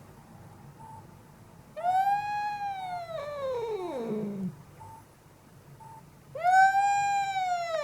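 Angry domestic cat yowling: two long drawn-out howls, each rising and then sliding down in pitch, the second starting near the end.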